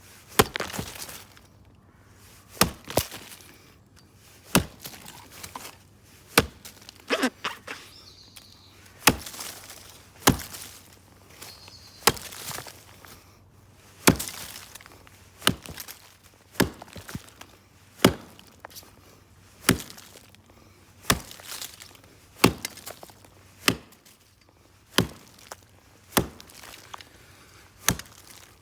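Origin Knives Bushcraft Axe, an O1 tool-steel head with the hammerhead splitter fitted to the poll, chopping into a log about 10 inches thick to buck it. It strikes steadily, about one sharp chop every one and a half seconds, some with a splintering tail.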